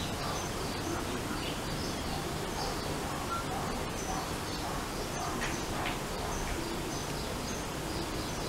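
Small birds chirping on and off over a steady hiss of outdoor background noise.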